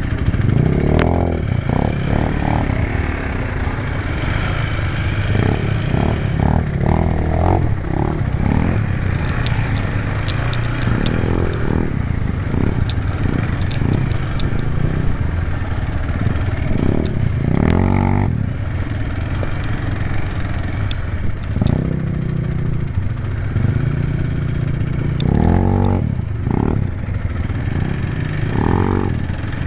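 Quad bike (ATV) engine running under way off-road, revving up and dropping back again and again as the rider works the throttle, with scattered clicks and clatter from the ride.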